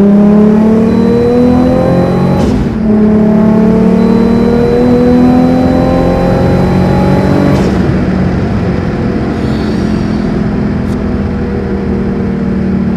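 Turbocharged Nissan Skyline R33 GTS-T's RB25DET straight-six, running a Garrett GTX3076 turbo, accelerating hard. The revs climb, drop sharply at an upshift about two and a half seconds in, climb again, and drop at a second upshift about seven and a half seconds in. The engine then pulls on more slowly in the higher gear.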